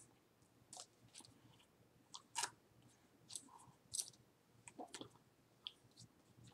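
Near silence broken by faint, irregular clicks and soft rustles from a person signing: hands brushing and tapping against each other and the shirt front.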